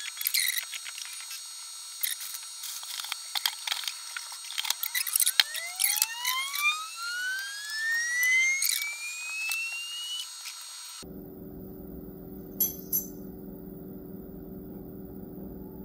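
Clicks and rustling of packaging being cleared away, over a whine with overtones that rises steadily in pitch for about five seconds. The whine is typical of the Creality K1 Max 3D printer's self-check vibration test. From about eleven seconds in only a low steady hum remains, with one click.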